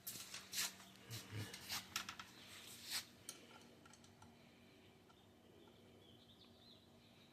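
Faint, scattered clicks and taps of hand tools and fairing parts being handled during a motorcycle fairing install, mostly in the first three seconds, then near quiet.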